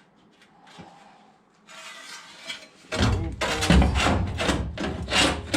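A few faint clicks, then background music with a strong bass line and a steady beat that comes in loudly about three seconds in.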